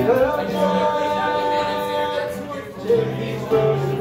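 Live acoustic string band, with acoustic guitars and upright bass, playing while a man sings lead into a microphone; a sung note slides up at the start and is held for about two seconds.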